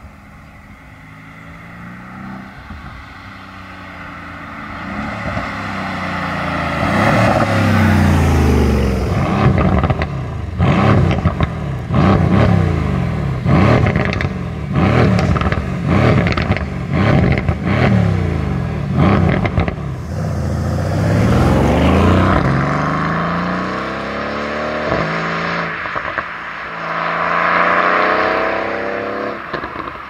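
Mercedes-AMG C63 estate's twin-turbo V8 exhaust: it builds as the car accelerates in from a distance, then gives a run of sharp revs with the car standing, about one a second, each rising and cutting off suddenly. Near the end it pulls hard again with rising and falling engine pitch.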